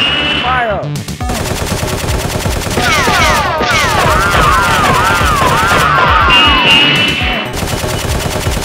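Rapid automatic gunfire sound effects: a dense rattle of shots starting about a second in and running on, with high falling whistle-like tones and a wavering tone layered over it in the middle.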